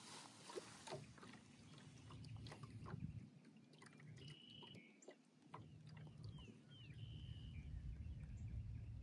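Near silence: faint open-water ambience with a low rumble of water and wind, scattered small clicks, and a few short high chirps about halfway through and again near the end.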